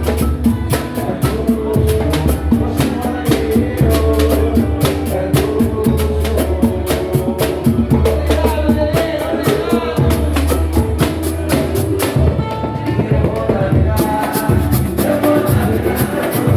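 Samba and pagode music: percussion with a deep, steady bass drum and fast, evenly spaced high hits. The high hits drop out for about two seconds near the end.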